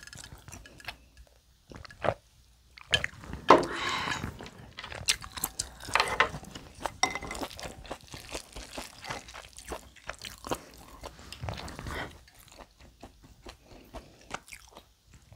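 Close-miked eating: chewing and mouth sounds from a mouthful of bibimbap, with irregular clicks and scrapes of a wooden spoon in a ceramic bowl as the rice is mixed. The sounds thin out near the end.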